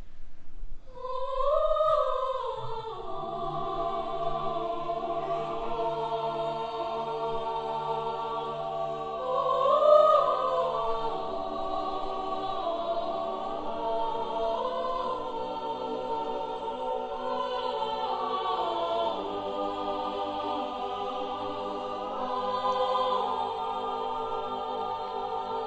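A choir singing long held chords in harmony, several voice parts sounding together and moving from chord to chord, with louder swells about two seconds in and about ten seconds in.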